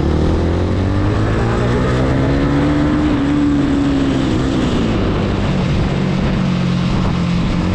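Yamaha R15's single-cylinder engine running at road speed, with wind rushing over the microphone. The engine note climbs and then drops back about halfway through.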